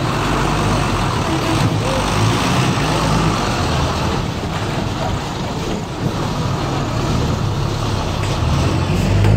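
Large passenger coach's diesel engine running as it drives slowly past at close range, with tyre and road noise. Near the end a second coach's engine grows louder as it comes closer.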